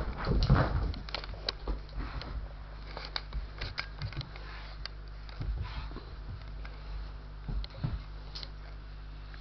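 A Doberman and a collie tussling over a toy: scattered short clicks, knocks and scuffles of paws and mouths on the toy and floor, loudest just after the start.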